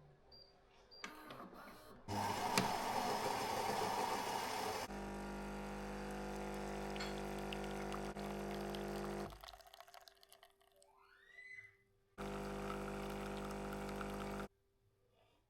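A small electric appliance motor running: a harsh, noisy whirr for about three seconds, then a steady hum, which stops, and then runs again for about two seconds near the end.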